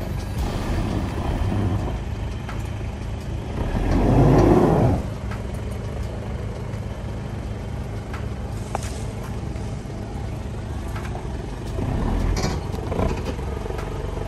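Off-road 4x4 being driven down a rough track: steady low engine and drivetrain rumble, with a louder, noisy surge about four seconds in and a smaller one near the end.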